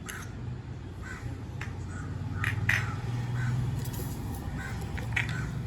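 Crows cawing in short, harsh calls, several times over, above a steady low hum.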